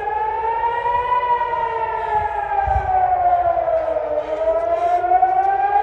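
Civil-defence air-raid siren wailing, its pitch rising and falling slowly: a public rocket-attack warning.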